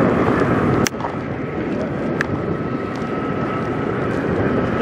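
Western Star semi truck's diesel engine idling, a steady running noise with a thin steady whine above it. A sharp click about a second in, after which the sound is slightly quieter.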